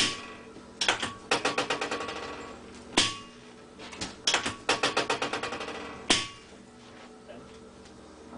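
Two runs of rapid sharp mechanical clicks, about ten a second and fading over a second or two, each followed by a single harder click: a hand-held chiropractic adjusting instrument delivering a series of thrusts.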